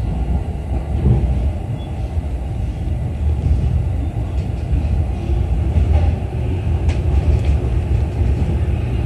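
Running noise of a JR East E233-5000 series electric train heard from inside the front car as it pulls into the terminus platform: a steady low rumble, with a couple of faint ticks about seven seconds in.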